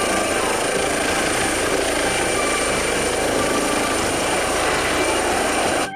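Air ambulance helicopter lifting off, its rotor and turbine noise running loud and steady with a high whine. It cuts off abruptly near the end.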